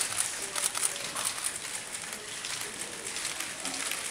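Many camera shutters clicking irregularly and rapidly over the low murmur of a crowd.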